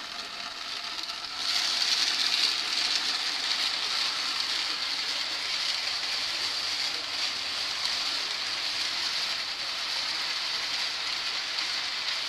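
Top-loading washing machine filling with water: a steady rushing hiss that starts abruptly about a second and a half in.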